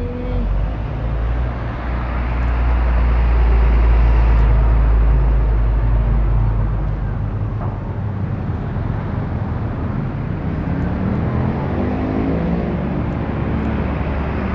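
Bus engine running with a deep, heavy rumble amid road traffic noise, swelling about two seconds in and easing off after about five seconds.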